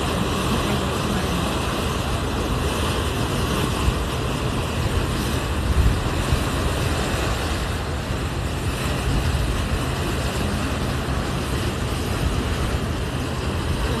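Wind rushing over the phone's microphone on the deck of a moving tour boat: a steady, loud, uneven rumble.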